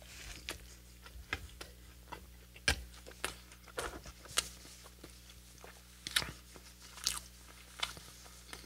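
Close-miked chewing and biting of a Hot Cheetos–crusted fried chicken sandwich: irregular crisp crunches, a handful of them much louder than the rest, with another bite taken near the end.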